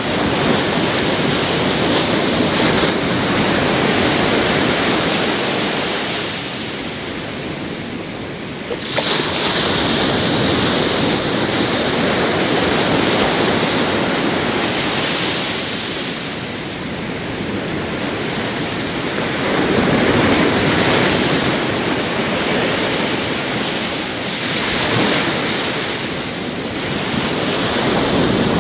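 Pacific surf breaking and washing up a beach: a continuous rush of waves that swells and ebbs every few seconds. One wave comes in sharply about nine seconds in, and further swells follow.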